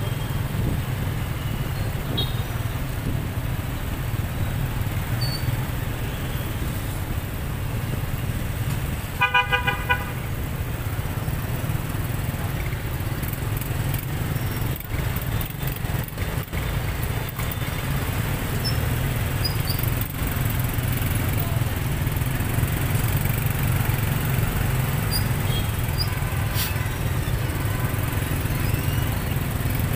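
Street traffic heard from a moving motorbike: a steady low engine rumble and road noise, with a vehicle horn tooting in a quick run of short beeps about nine seconds in.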